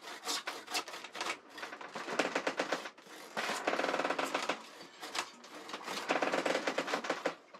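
Sailboat winch ratcheting rapidly as a line is hauled in, the pawls clicking in several bursts with short pauses between.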